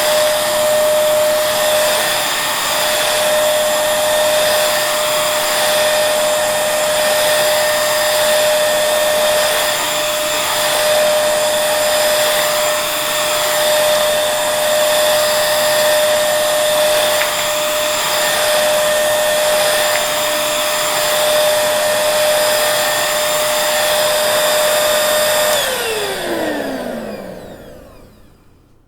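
Vacuum cleaner running steadily, a high motor whine over a rushing airflow, then switched off about 25 seconds in: the whine falls in pitch as the motor spins down and the sound fades out.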